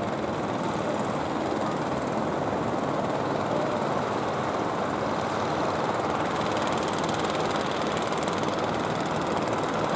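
Fishing boat engines running as the boats head in under way, blended with the rush of sea and spray into a steady drone that grows slightly louder near the end.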